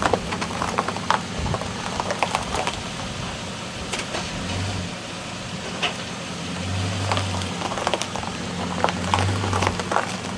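Chevy Silverado pickup's engine idling as the truck is rolled forward slowly, its low hum swelling a few times, with scattered clicks and clinks from the freshly fitted steel tire chains.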